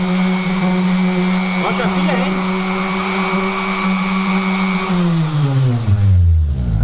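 Corded Hofer Workzone random orbital sander running steadily on plywood, then switched off about five seconds in, its motor hum falling in pitch as it spins down.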